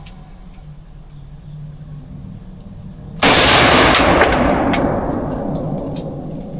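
A single shot from a scoped hunting rifle about three seconds in, sudden and very loud, its echo rolling away over the next three seconds.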